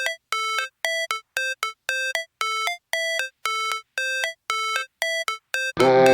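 Background music: a synthesizer riff of short, repeated beeping notes, about two a second. Near the end a louder, fuller electronic track with heavy bass comes in.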